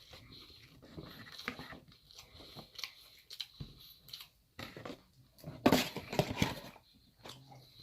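A person eating close to the microphone: irregular chewing, biting and crunching mouth sounds, with a louder burst of crackling crunches about six seconds in.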